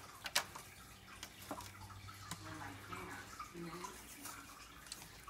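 Crumbs of soil and bits of root dropping onto a disposable aluminium foil pan in scattered ticks, with the soft rustle of the roots being handled; the sharpest tick comes about a third of a second in.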